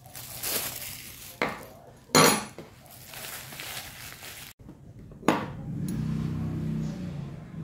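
Stainless steel spoons clinking as they are slid out of crinkling plastic sleeves and set down on a wooden table, with a few sharp metal clicks. A louder clink comes about five seconds in.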